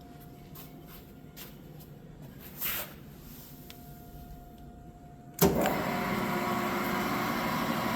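A few faint clicks, then about five seconds in the Wells Index 860 mill's 2 hp motor and spindle drive start with a sudden clunk and run steadily, a quiet drive in good order.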